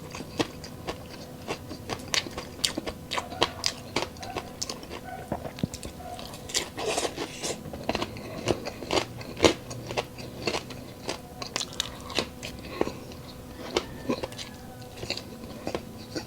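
Close-miked chewing of crispy deep-fried chicharon bulaklak (pork mesentery), with many irregular sharp crunches, thickest about halfway through.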